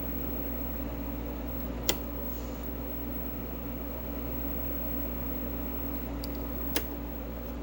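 Steady electrical hum and fan-like hiss from powered bench equipment, broken twice by a short sharp click about five seconds apart.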